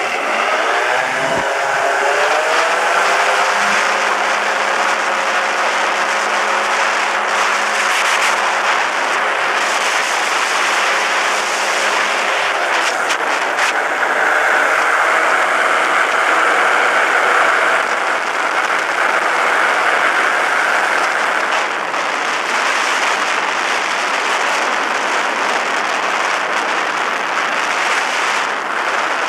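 Motorized hang-glider trike's engine throttling up for the takeoff run, its note rising over the first couple of seconds and then holding steady at full power. From about twelve seconds in, as it climbs away, the engine note is buried under a steady rush of air.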